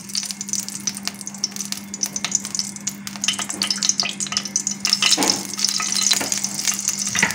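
Hot refined oil sizzling and crackling in a nonstick kadai over a gas flame, heating before whole spices go in, with a steel spoon stirring through it.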